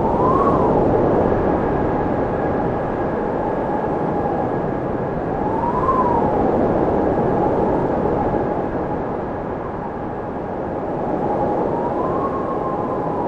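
Howling blizzard wind in gusts that swell and ease, with a thin whistling tone that rises and falls three times.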